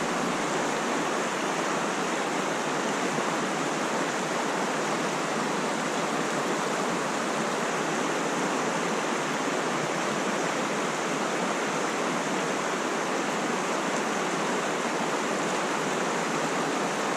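Steady rush of flowing mountain-stream water, an even, unbroken hiss with no let-up.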